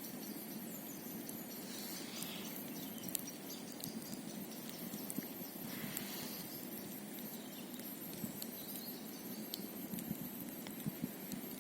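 Wood campfire crackling: irregular sharp snaps and pops over a steady low hiss of burning, with a couple of brief soft hissing puffs.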